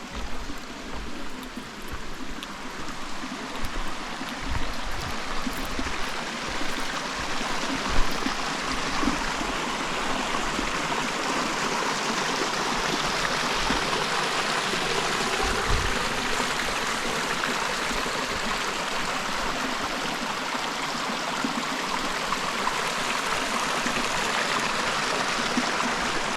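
Creek water rushing over rocks: a steady hiss of flowing water that grows louder over the first several seconds and then holds. A few short low thumps are heard in the first part, the sharpest about eight seconds in.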